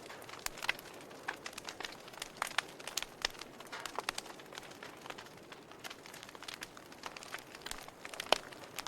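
Wood fire crackling: irregular sharp pops and snaps over a soft hiss, with one louder pop near the end.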